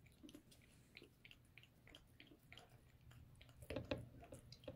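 A cat crunching dry kibble from a bowl: faint small irregular crunches a few times a second, with a louder cluster near the end.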